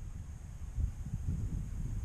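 Wind buffeting the microphone: a low, uneven rumble that rises and falls in gusts.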